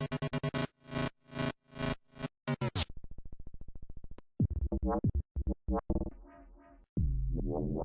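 A run of synthesized dubstep sound effects. Rapidly stuttered, chopped synth notes have their brightness cut off about three seconds in. A fast low buzz follows, then short swooping bass notes and, near the end, a sustained wobbling bass.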